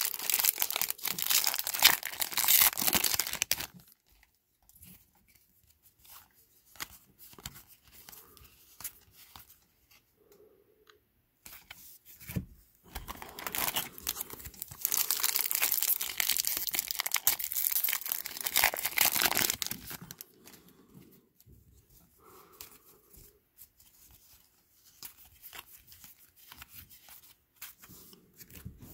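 Foil wrappers of Topps WWE trading card packs being torn open and crinkled, loudest in the first few seconds and again from about 13 to 20 seconds in. Softer handling rustles come in between.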